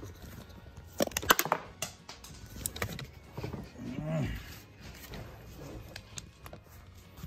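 Metal hand tools clinking and clattering as sockets and wrenches are handled, with a sharp run of clanks about a second in. A short low grunt-like vocal sound comes near the middle.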